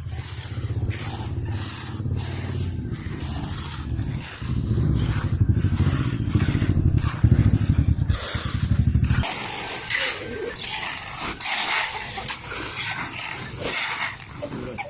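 An engine runs steadily with repeated knocks over it, then cuts off suddenly about nine seconds in. Scraping and clattering follow.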